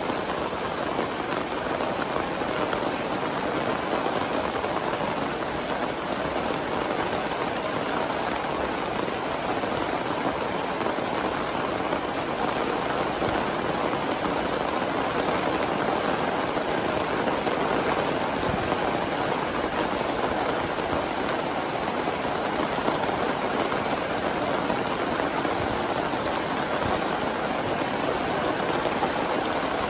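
Very heavy rain pouring down in a steady, dense downpour.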